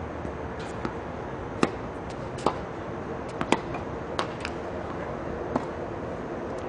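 Tennis rally on a hard court: sharp pops of racket strings striking the ball and lighter knocks of the ball bouncing on the court, about one every second, the loudest near-side hits about two seconds apart.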